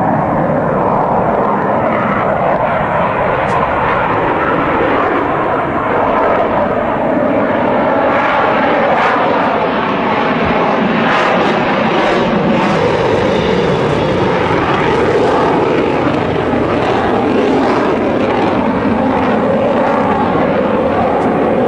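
Military jets flying past: loud, steady jet engine noise.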